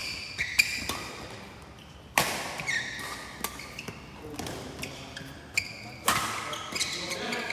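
Badminton rally: rackets striking the shuttlecock in a series of sharp hits, the loudest about two seconds in and about six seconds in, echoing in the hall, with short squeaks of court shoes between the hits.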